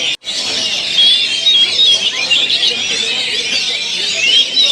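Several oriental magpie-robins singing at once, a dense tangle of loud whistles, trills and chirps, as heard at a songbird contest. The sound drops out for a split second near the start.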